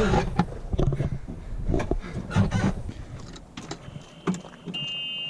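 Golf cart being tried after a breakdown: scattered clicks and knocks of handling it, then a steady high-pitched electronic tone that starts about four seconds in.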